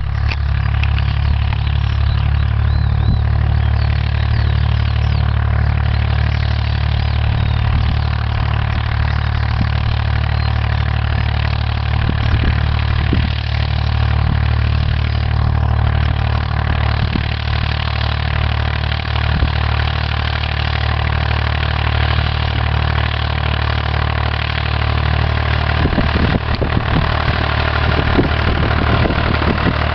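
Massey Ferguson 255 tractor's four-cylinder diesel engine running steadily at an even speed.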